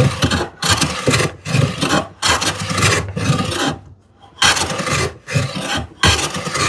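Hand plane taking heavy, rasping cuts across the rough bandsaw-resawn face of a poplar board, its blade set deep. There are about eight quick strokes, with a short pause a little past the middle.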